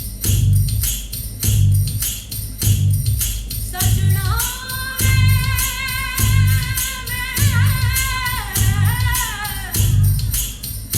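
A song played back through Sound King F-35K Kevlar-cone bookshelf speakers: a steady deep bass beat under quick tambourine-like percussion, with a singing voice coming in about four seconds in.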